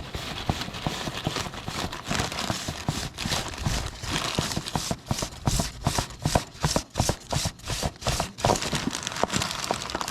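Plastic grocery bag crinkling and rustling in irregular crackles around a tractor's oil filter as the filter is worked off inside it. The crackles come thickest a little past the middle.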